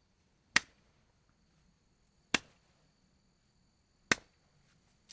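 Hand slapping a knee three times, each a sharp single slap about two seconds apart, with a faint fourth touch at the very end.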